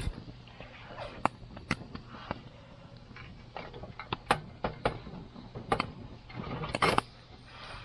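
Wood campfire crackling, with irregular sharp pops and snaps, and a louder rustling burst about seven seconds in.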